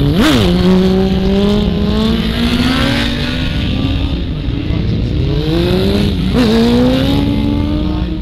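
Motorcycle engines running loud and accelerating, the pitch climbing steadily with a sudden drop, like a gear change, just after the start and again about six seconds in.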